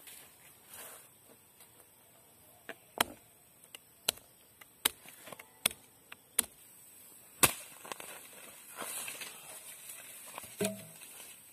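Knife chopping garlic cloves on a wooden plank: about six sharp knocks, roughly one every three-quarters of a second, the last the loudest.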